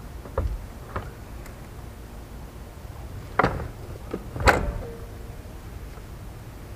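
A few knocks and clunks of parts being handled, two of them much louder about three and a half and four and a half seconds in, the second leaving a short ringing tone. A steady low rumble of wind lies underneath.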